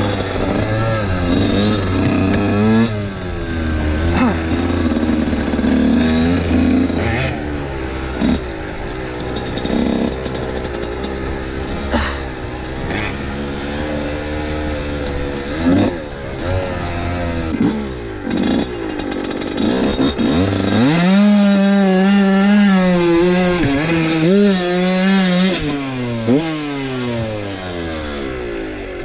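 Husqvarna WR 125 two-stroke enduro motorcycle ridden along a rough trail, the engine note rising and falling with the throttle, with occasional sharp knocks. About twenty seconds in it revs up steeply, holds a high note for a few seconds, then drops away.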